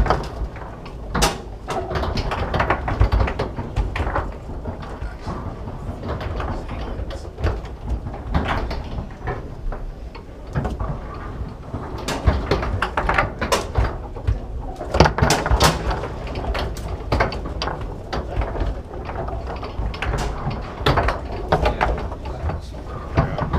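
Foosball table in play: irregular sharp clacks and knocks as the ball is struck by the men and hits the table walls, and the rods slide and bang in their bearings.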